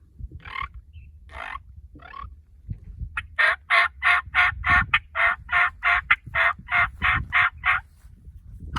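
Hand-worked turkey call imitating a wild turkey: a few single notes, then from about three seconds in a fast, even run of some fifteen sharp notes, about three a second.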